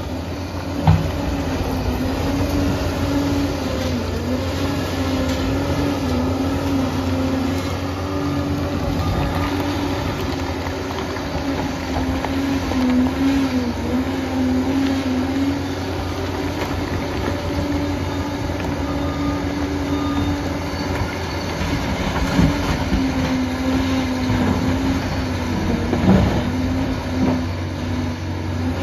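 Liebherr PR 746 crawler bulldozer working: its diesel engine runs steadily under load while its steel tracks clank. A few sharp metal knocks stand out, one about a second in and two more near the end.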